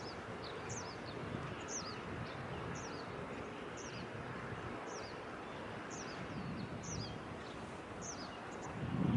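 Steady outdoor background noise with a small bird chirping about once a second, each chirp a short high note falling in pitch. A low rumble swells near the end.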